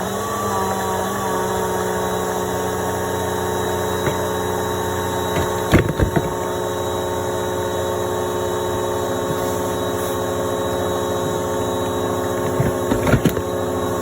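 Bissell PowerForce Helix upright vacuum cleaner running steadily at a constant pitch, with a few short knocks about six seconds in and again near the end.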